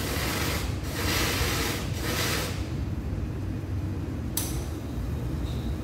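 Espresso machine steam hissing in three blasts that stop about two and a half seconds in, over a steady low hum. A sharp click follows near the end.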